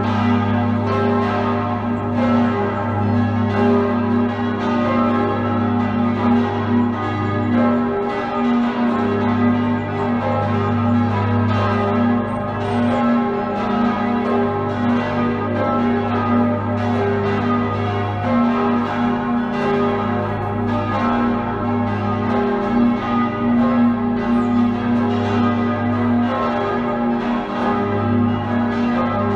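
Full peal of six swinging bronze church bells tuned G#, B, D#, F#, G#, E, the oldest cast by Jakob Mathis Rageth in 1781; their strikes overlap in a steady, irregular ringing. The big G# bell's deep hum sounds under it all, swelling and fading.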